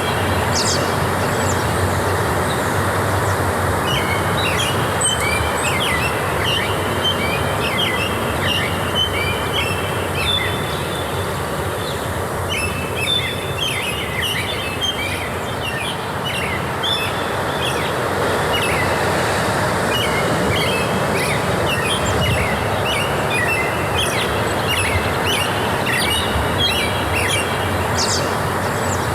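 Small birds chirping in quick, repeated high notes over a steady rushing background noise.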